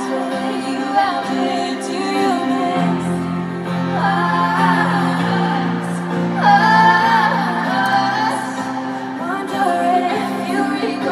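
Live pop ballad played over a stadium sound system: female voices singing long held notes over acoustic guitar accompaniment.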